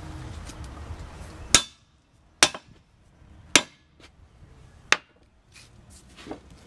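Four sharp hammer blows, roughly a second apart, each with a short metallic ring. They tap a tool in to break a tire's bead off the rim.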